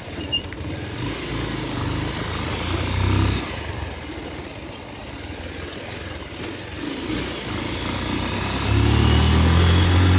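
Motorcycle engine running as the bike is ridden, with wind and road noise. The engine note swells briefly about three seconds in and grows louder near the end as it pulls harder.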